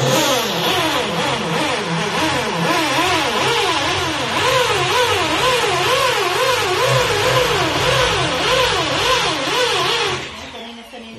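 Corded electric drill boring into a wall, running continuously for about ten seconds with its motor pitch wavering up and down under load, then stopping abruptly.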